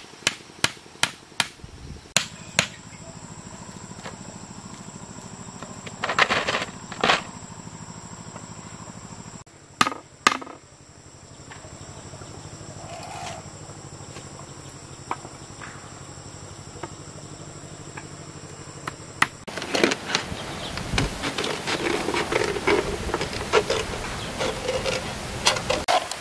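Hammer blows on a bamboo frame: a quick run of sharp knocks in the first couple of seconds, and a few more about six and ten seconds in, over a steady high insect drone. From about twenty seconds in, the crackle of a plastic bottle being cut with scissors.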